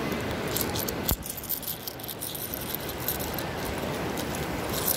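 Seashells clicking and clinking together in a hand, small sharp ticks scattered throughout, with one sharper knock about a second in, over a steady low rush.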